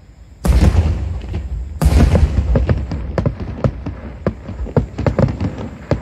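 Aerial firework shells bursting: two heavy booms, about half a second and nearly two seconds in, followed by a dense run of quicker sharp bangs and pops.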